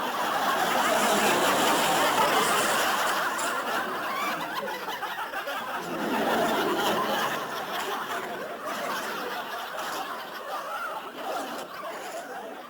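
Crowd of many people laughing together, swelling twice and slowly dying away at the end.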